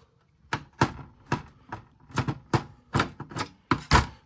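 A run of sharp, irregular clicks and knocks, about three a second, from working a screw out of a typewriter's plastic housing.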